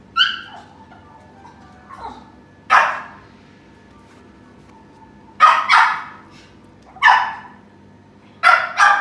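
Small dog barking in short, sharp, high-pitched barks, about seven over several seconds, some in quick pairs: play barking to draw another dog into a game.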